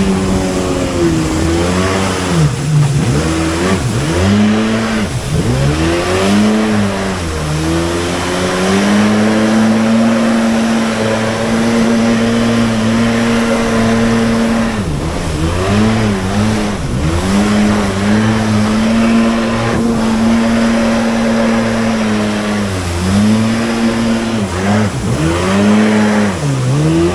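Yamaha WaveRunner jet ski engine running at speed, its pitch repeatedly dipping and climbing back as the throttle is eased and opened again, holding steady for several seconds in the middle. A constant hiss of water spray lies under the engine.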